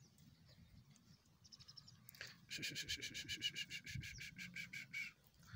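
A bird's rapid chattering call: a run of about twenty quick, even notes at roughly eight a second, starting about two and a half seconds in and stopping shortly before the end, over a faint low rumble.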